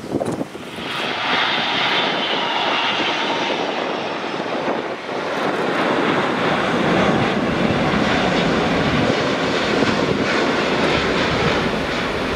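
Airbus A380-800's four turbofan engines on landing approach: a loud, steady jet noise that swells about a second in as the airliner flies past, with a faint high whine sliding down in pitch a couple of seconds in.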